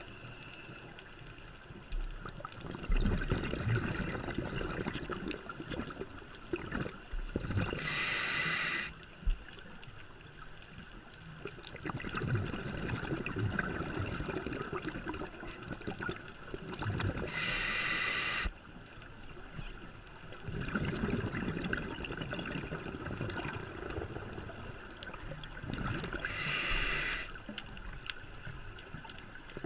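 A scuba diver breathing through a regulator underwater: a rush of exhaled bubbles three times, roughly every nine seconds, each lasting about a second, with quieter water and regulator sounds between.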